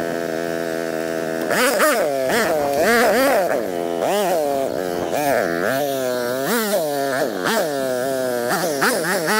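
Dirt bike engine heard from a distance, buzzing steadily at first, then revving up and down again and again as the throttle is worked under load on a steep climb.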